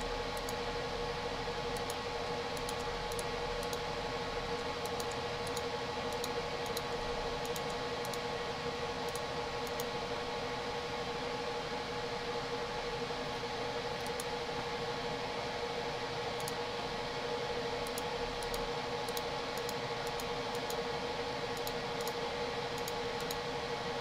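Steady background hiss with a constant hum, the recording's noise floor between spoken remarks, with faint short ticks here and there.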